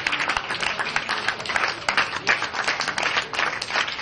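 Audience applauding, with one person's hands clapping close by.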